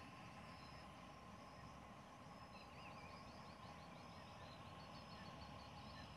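Near silence with faint bird calls: short high chirps and trills repeating, over a low steady rumble.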